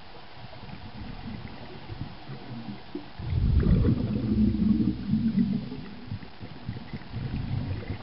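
Scuba divers' exhaled air bubbles rumbling and gurgling underwater, picked up through the camera housing: a long low burst from about three seconds in until near six seconds, and a smaller one near the end.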